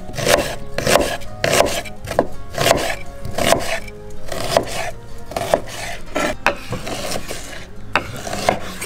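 Kitchen knife slicing raw onion into half-rings, then lamb liver, on wooden cutting boards: each cut ends in a tap of the blade on the board. The cuts come about twice a second at first, then more slowly and unevenly.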